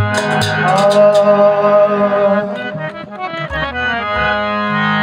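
Instrumental passage of harmonium playing a held melody over sustained reed chords, with tabla strokes during the first second or so that then stop.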